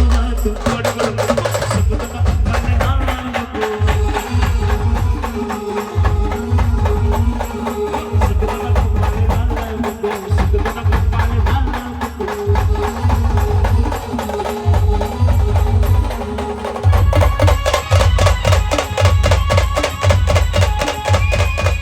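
Band music with no singing: held melody notes over heavy, regular drum beats. About 17 seconds in, a denser and faster run of percussion joins.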